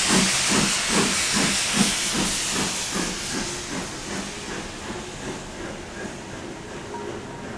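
Steam locomotive working, its exhaust beats about two and a half a second under a strong hiss of steam. The hiss dies away about three to four seconds in and the beats grow fainter as the engine draws away.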